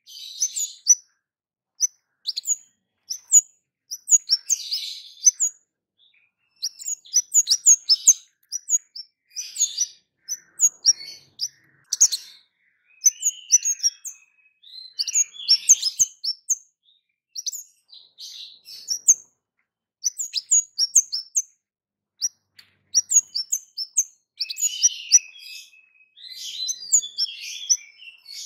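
Orange-headed thrush (kemade) singing hard: rapid runs of short, sharp, high 'cit' chirps in bursts, mixed with scratchy twittering, with brief pauses between phrases.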